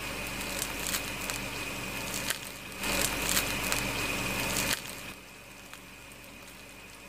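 Crisp sesame-coated crust of a fried cheese ball crackling as fingers tear it open, loudest about three seconds in. It drops off about five seconds in, leaving a faint steady hum.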